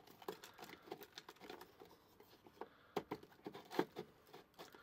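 Faint, irregular crackling and light clicks as a crisped-rice treat mixture is tipped and scooped out of a plastic toy mixing cylinder into a mold, with a couple of sharper plastic clicks about three seconds in and again just before four seconds.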